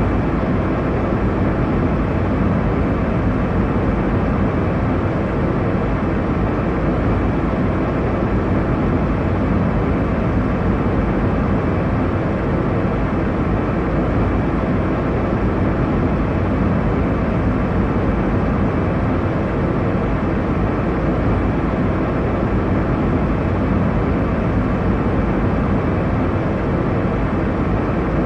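Airliner cabin noise in flight: a steady, unchanging rush of engine and airflow noise, heaviest in the low and middle range.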